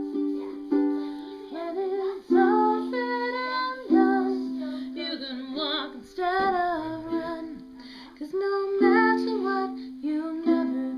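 Music: a strummed or plucked ukulele with a woman singing a melody over it.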